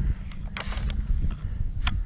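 Wind buffeting the microphone with a low rumble, while paper pages of a manual rustle briefly about half a second in; a single sharp click near the end.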